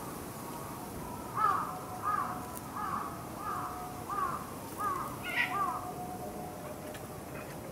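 An animal calling about seven times in a row, short arched calls evenly spaced a little over half a second apart.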